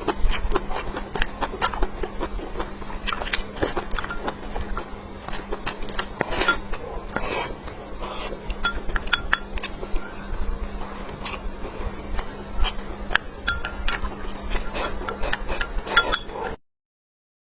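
Close-miked eating sounds: chewing and mouth smacks with utensils clinking against a bowl, a dense run of sharp clicks over a faint steady hum. They stop abruptly near the end.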